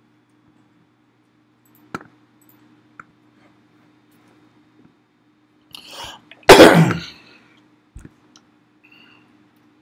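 A man gives one loud cough about six and a half seconds in, just after a short breath. A few faint clicks come before and after, and a low electrical hum runs underneath.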